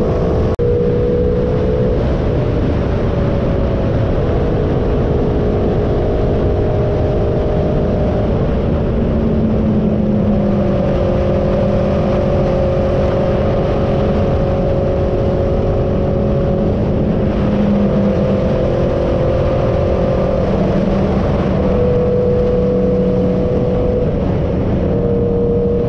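Aprilia RSV4's V4 engine running at highway speed, its pitch holding steady and then shifting in steps, over heavy wind and road noise.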